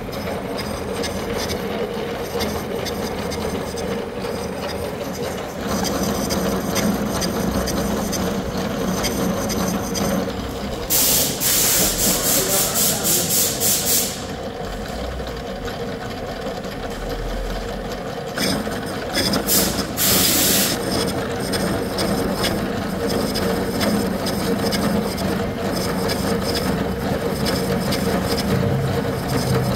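Milling machine running steadily, its toothed form cutter cutting the teeth of a bronze worm wheel. Two louder, harsher stretches of fast rattling, about 11 seconds in and about 19 seconds in, stand out over the steady machine hum.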